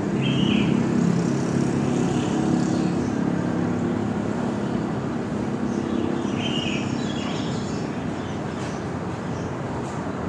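Birds chirping in short calls, twice clearly about half a second in and again past the middle, with fainter high chirps in between, over a steady low rumble that eases off slightly toward the end.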